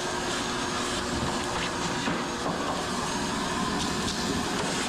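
Steady mechanical running noise: an even hiss with a faint low hum, unchanging throughout.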